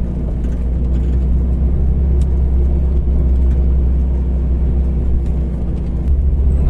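Toyota Lite Ace van's engine running steadily under way on a rough, sandy dirt track, picking up revs slightly about six seconds in.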